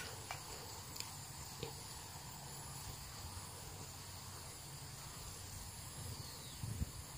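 Faint outdoor quiet with a steady high-pitched insect drone, likely crickets. A few soft clicks come in the first two seconds.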